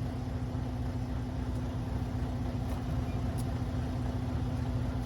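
Steady low mechanical drone with a constant hum, from an engine or motor running at an even speed, with a few faint light ticks over it.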